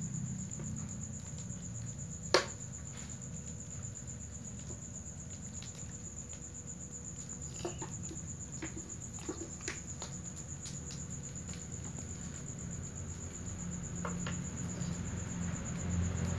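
Crickets chirring in a steady high trill, with a few scattered clicks and one sharp pop about two seconds in.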